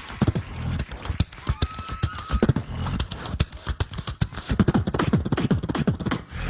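Human beatboxing into a handheld microphone: a fast run of snare and hi-hat-like clicks over deep kick drums that drop in pitch, with a brief high tone about two seconds in.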